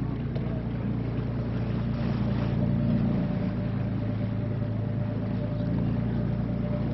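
Tour catamaran's engines running steadily, a constant low hum with a faint steady whine above it, over an even rushing hiss.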